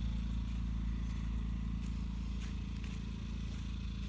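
Steady low mechanical hum of a running motor, with a few faint clicks and two brief high chirps near the start.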